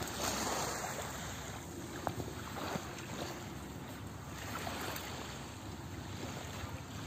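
Small waves lapping on a sandy shore, mixed with wind on the microphone, with a few faint taps about two and three seconds in.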